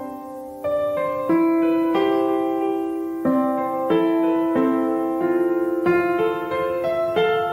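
Background music on piano or keyboard: held chords and notes, each struck cleanly and changing every second or so.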